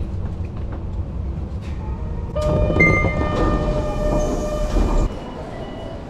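Kyoto subway train heard from inside the car: a steady low rumble, with a steady whine of several flat tones for about three seconds from a couple of seconds in. It cuts off about five seconds in to quieter station ambience.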